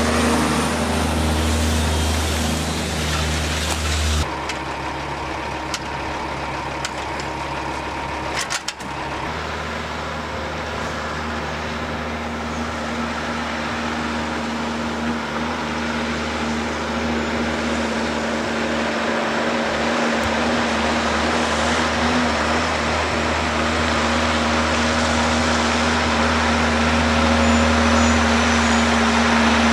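Heavy diesel engine of a loaded logging truck working along a gravel track, a steady drone. The sound changes abruptly about four seconds in and again near nine seconds, then grows gradually louder toward the end.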